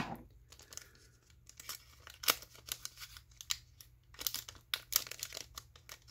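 Scissors snipping open a foil Pokémon booster pack, with the foil wrapper crinkling as it is handled. Irregular sharp crackles, a louder snap at the very start and another a little over two seconds in.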